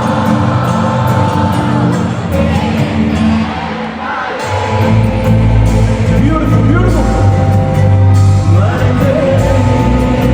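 Live band music with a singer, recorded from the audience in an arena; a deep bass comes in about halfway through under the held notes.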